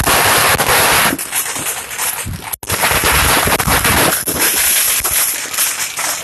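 Consumer fireworks going off close by. A loud, steady hiss of a spark-throwing ground firework runs for about the first second, then dense crackling and many sharp bangs follow. The sound cuts out for an instant about two and a half seconds in.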